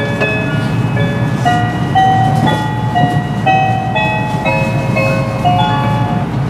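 An electronic chime melody on the train's public-address speakers, notes changing about twice a second, the signal that an arrival announcement follows, heard over the low rumble of the train running. It ends near the end.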